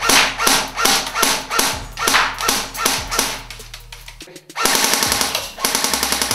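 SRC G36 Gen 3 airsoft electric gun (AEG) firing semi-auto single shots in quick succession, about two or three a second. After a short pause about four seconds in, it fires two rapid full-auto bursts.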